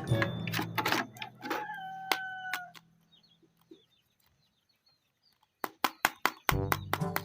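Background music with a beat, over which a single held crowing call sounds, like a rooster, and then the music stops. After a short quiet stretch come a few sharp clicks, and the music starts again near the end.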